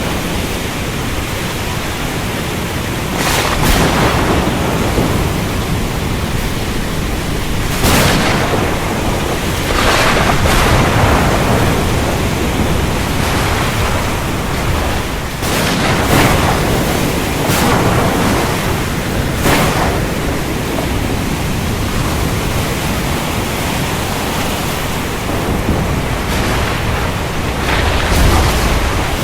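Heavy rain in a thunderstorm, a steady hiss, broken every few seconds by short, sharp cracks of thunder.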